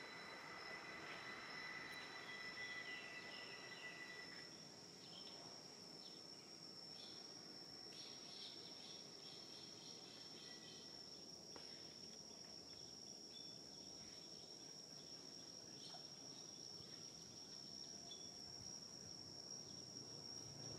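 Faint, steady high-pitched insect drone held throughout, with a second, lower insect tone that stops about four seconds in and a few short scattered chirps.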